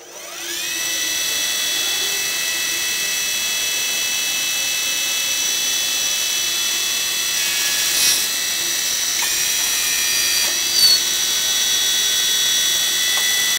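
Cam automatic lathe with a cross side multi-flat milling attachment running: a high-pitched machine whine rises in pitch in the first second, then holds steady while a small brass part is machined. Two brief louder moments come about eight and eleven seconds in.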